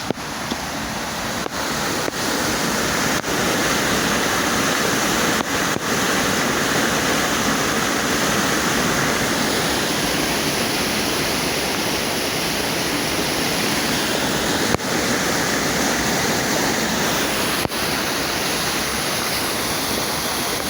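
A steady, even rush of water, loud and without breaks.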